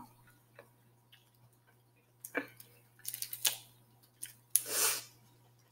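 Snow crab leg shell being cracked and pulled apart by hand: a few sharp snaps and clicks, then a short crackling crunch near the end.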